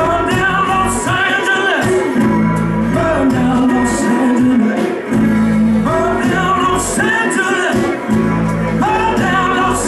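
Live acoustic rock band: a male singer sings held, wavering phrases over strummed acoustic guitar, resonator guitar and bass guitar.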